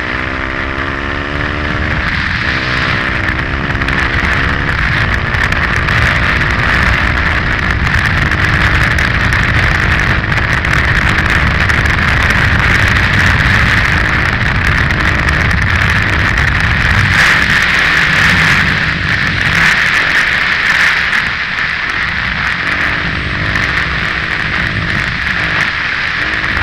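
KTM 530 EXC-R single-cylinder four-stroke dirt bike riding at speed, its engine pitch rising and dropping with gear changes in the first few seconds and again near the end. A steady rush of wind on the helmet-mounted microphone largely covers the engine in between.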